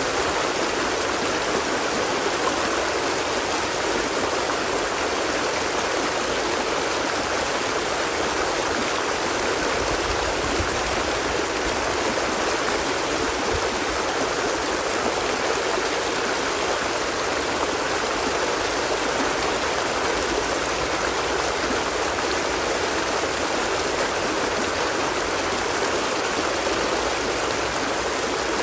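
Flowing water running steadily and evenly, with no breaks or separate splashes and little deep rumble.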